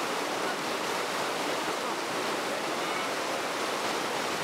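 River rapid: whitewater rushing steadily over rocks.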